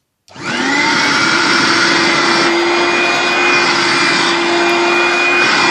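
1986 Hoover Dustette S1122 handheld vacuum cleaner switched on, its small motor and seven-blade plastic fan spinning up with a rising whine in the first half second, then running steadily with a loud whine. It is a little bit noisy and vibrates even after the fan and motor were cleaned, which the owner thinks may just be the way it is.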